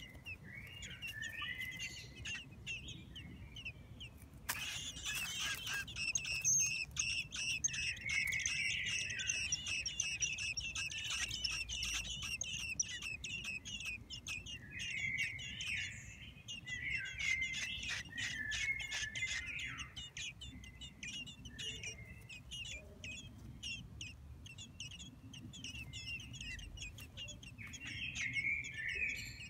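13-day-old Eurasian blackbird nestlings begging, a dense chorus of high, rapid chirps. A sudden burst of noise about four seconds in is followed by the most intense begging, which eases off about twenty seconds in, with softer calls before and after.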